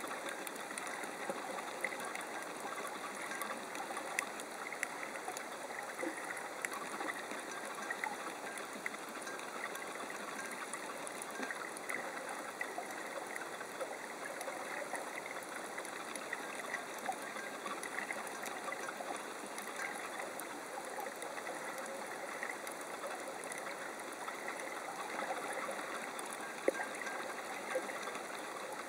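Underwater ambient sound of a shallow coral reef: a steady hiss scattered with fine crackling clicks, with a couple of sharper clicks near the end.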